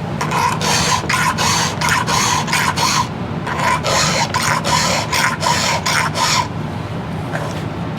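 Round file rasping across chainsaw chain cutters in quick, even strokes, about three a second, with a faint metallic ring; the filing stops about six and a half seconds in.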